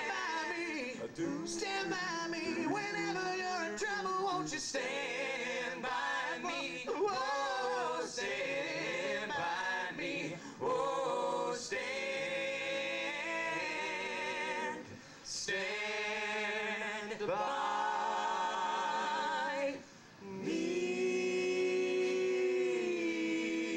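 Male a cappella vocal group singing slow close harmony into microphones, voices wavering with vibrato. The singing breaks off briefly twice, about two thirds of the way through and again near the end, then settles into a long held chord.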